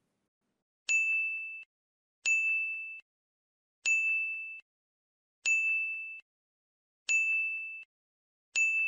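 Six identical electronic beeps, each a sharp-edged steady high tone lasting under a second and stopping abruptly, evenly repeated about once every second and a half.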